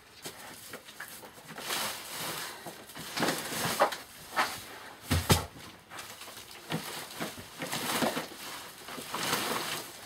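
Rustling and scraping of stacked filled sacks as a cat clambers over them, in irregular spells, with one sharp knock about five seconds in.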